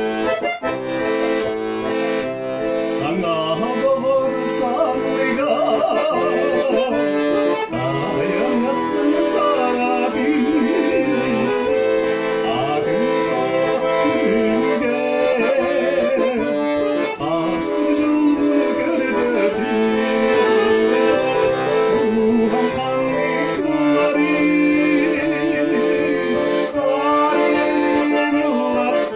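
Accordion playing a tune, a melody moving over held chords, with no singing heard.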